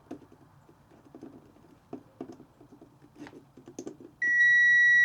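Light clicks and taps of handling test probes, then about four seconds in a multimeter's continuity beep starts: a loud, steady high tone. The beep means the fuse being probed conducts, i.e. the fuse is good.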